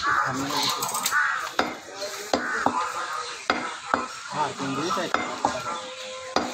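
A butcher's cleaver chopping beef on a wooden log chopping block: a quick, irregular series of sharp chops, roughly two a second.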